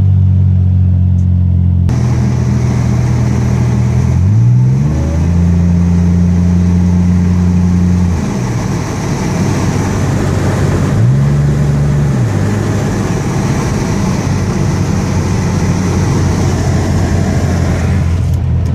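Supercharged 3800 Series II V6 of a 2001 Pontiac Grand Prix GTP, with a 3-inch exhaust and no resonator, heard from inside the cabin while driving. The engine drone rises in pitch about four seconds in as the car accelerates, holds, eases off about eight seconds in, and surges briefly again around eleven seconds. From about two seconds in, wind rushing through the open windows covers much of it.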